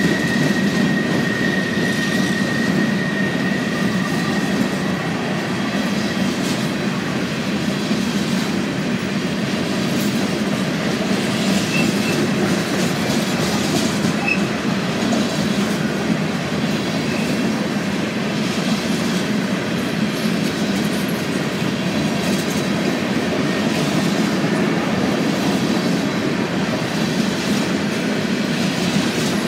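Empty steel coal hopper cars of a freight train rolling past on the rails with a steady rolling noise. A thin, high wheel squeal fades out in the first few seconds.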